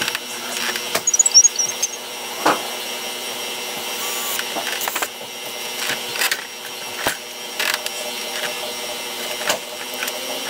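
Hand work on a metal electrical meter base: a run of sharp clicks and knocks, with a quick cluster about a second in and the loudest knock about two and a half seconds in, over a steady hum.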